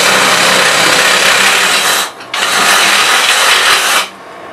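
Cordless reciprocating saw (sawzall) cutting through the old wooden axe handle to trim it flush with the axe head. It cuts in two runs with a brief pause about 2 s in, then stops about 4 s in.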